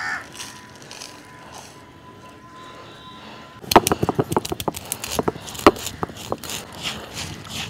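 Stone roller of a traditional Tamil grinding stone (ammi kal) rolled over black peppercorns and cumin seeds on the flat stone slab. The dry seeds crack and grate under the stone in quick, irregular clicks and scrapes, starting about halfway in.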